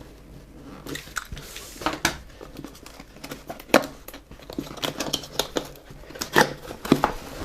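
A power supply's cardboard box and its packing being pulled open by hand: irregular crinkling and tearing with scattered clicks and a few sharp knocks, the sharpest about four seconds in and again near the end.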